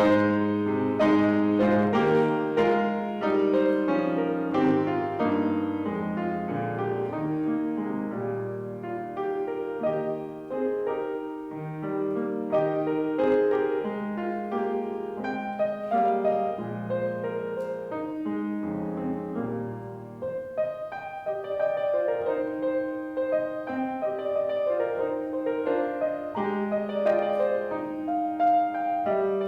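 Piano playing, chords and melody with many struck notes ringing on.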